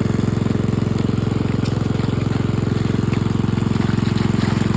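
Small engine running steadily at a constant speed, with a fast, even beat.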